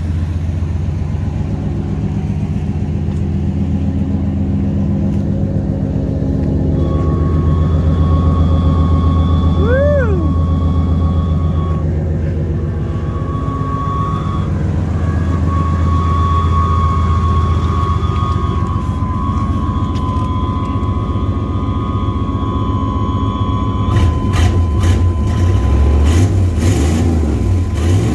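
Old GM full-size pickup truck's engine running at a steady idle, with a thin high whine that drops out and comes back several times. Several sharp knocks and clunks in the last few seconds.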